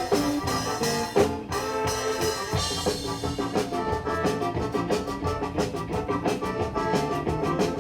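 Upbeat instrumental music with horns and a drum kit keeping a steady beat.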